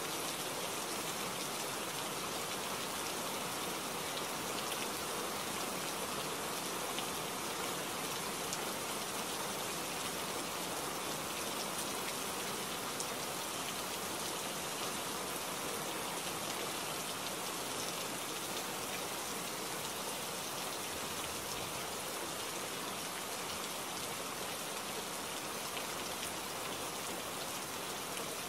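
Steady rainfall: an even hiss of rain that holds at one level throughout.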